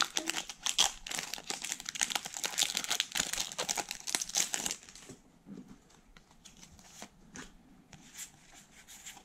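Foil wrapper of a Pokémon trading-card booster pack crinkling and tearing open for about the first five seconds. After that come quieter, scattered ticks of the trading cards being slid out and handled.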